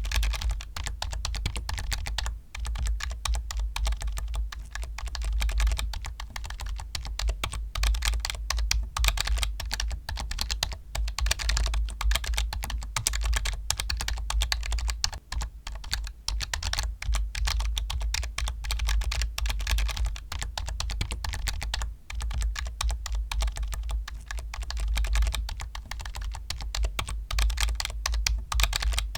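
Continuous fast typing on a computer keyboard: a dense stream of key clacks, broken by a few brief pauses, over a steady low rumble.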